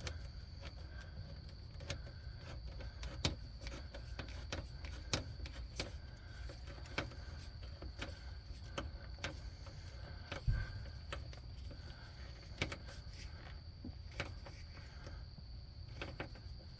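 Band clamps being tightened by hand on hoses: irregular light clicks and taps of the clamp and tool, with a duller knock about ten seconds in. Under it runs a steady low hum and a faint high whine.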